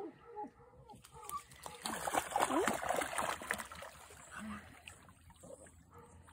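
A small dog in a life jacket splashing into the water and dog-paddling; the splashing is loudest for about two seconds in the middle, then settles to softer paddling.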